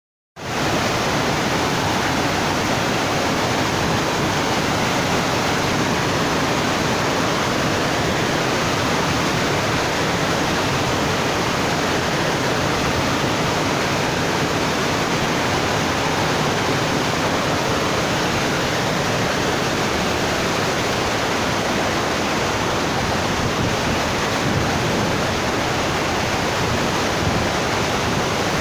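Steady rushing water: an even, unbroken hiss that comes in within the first half second and holds without change.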